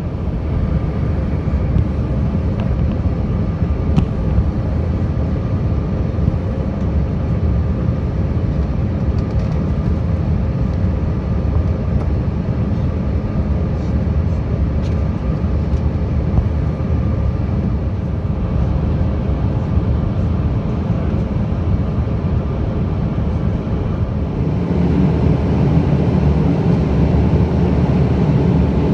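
Steady cabin noise of an airliner in flight: a low drone of engines and rushing air, with a few faint steady tones in it. About three-quarters of the way through it grows a little louder and deeper.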